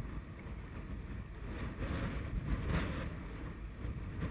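Wind buffeting the microphone with a low rumble, over the wash of floodwater around an inflatable rescue boat.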